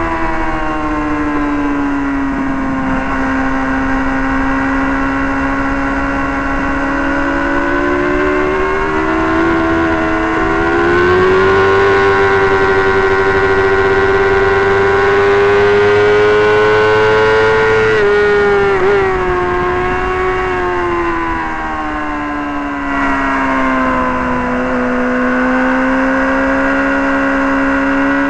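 Sport motorcycle engine heard from on board at racing speed. The engine note dips slightly at first, climbs about a third of the way in and holds high, then drops sharply about two-thirds through with brief stutters, as when braking and changing down for a corner. It settles at a lower steady pitch near the end.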